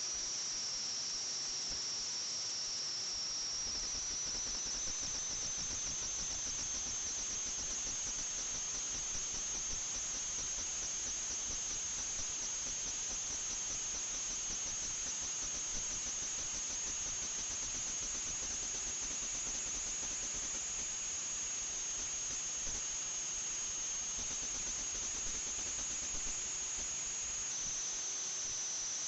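FPV quadcopter's brushless motors whining at a high pitch over a hiss of propeller wash. The pitch climbs a few seconds in, holds steady, and drops back near the end as the throttle changes.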